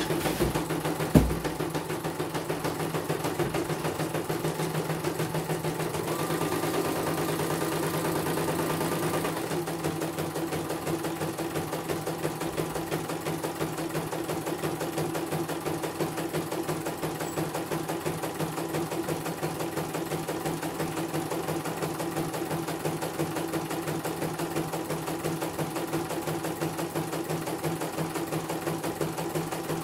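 CNY portable computerized embroidery machine stitching a design in its hoop: a fast, even run of needle strokes over a steady motor hum. A sharp click about a second in, and a faint high whine for a few seconds midway.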